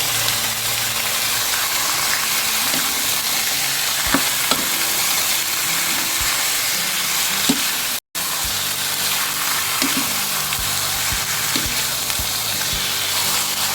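Chicken pieces sizzling in hot oil with ginger, garlic and onion, a steady loud frying hiss while being sautéed, with a few sharp knocks of the stirring utensil against the pan. The sound cuts out for an instant about eight seconds in.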